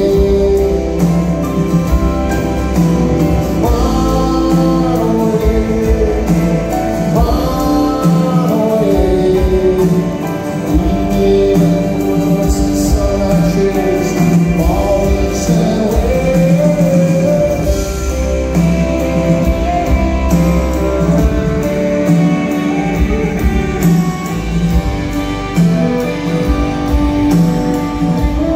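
Live rock band playing a song with a male lead vocal over acoustic and electric guitars, keyboard and drums.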